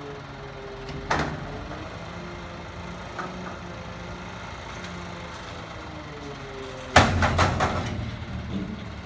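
Automated side-loader garbage truck running its lift arm, with a hum whose pitch rises and falls as the engine revs to drive the hydraulics, and a single knock about a second in. About seven seconds in, a loud clatter of bangs as the cart is tipped and shaken out over the hopper and the trash drops in.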